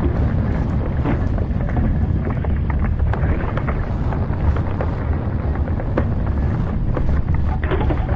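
A steady low rumbling noise with scattered short crackles and clicks through it.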